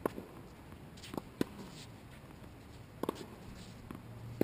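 Tennis ball knocking on a hard court: five sharp, separate knocks at uneven gaps, the loudest near the end.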